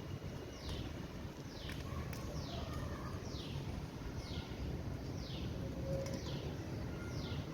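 A bird calling: a short, high, falling chirp repeated evenly about once a second, over a steady low background rumble.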